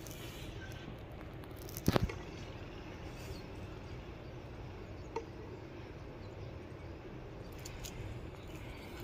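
Quiet handling sounds of a snake hook and pipe-and-bag tube while a cobra is steered over dry leaves: a short clatter of sharp clicks about two seconds in and a single faint click a few seconds later, over a low steady background.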